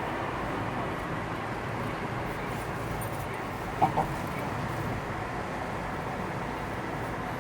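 Steady vehicle and road noise, broken about four seconds in by two short, sharp calls in quick succession, the loudest thing here.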